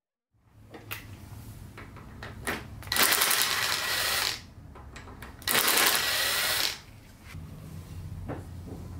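Ryobi cordless power driver spinning a socket on an extension, driving a bolt at the scooter's front fork in two bursts of a little over a second each, with a few small clicks of the socket and metal before them.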